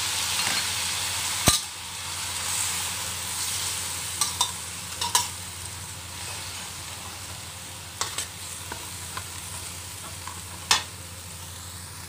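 Lotus root slices, carrots and pork sizzling in a little broth in a stainless steel wok, the sizzle slowly dying down. A metal spatula stirs and scrapes through them, with a few sharp clicks of the spatula against the wok.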